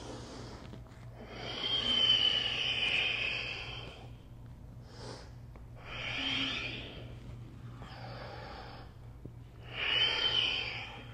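A woman breathing deeply and audibly while moving through yoga poses. There is one long breath about two seconds in, then four shorter ones.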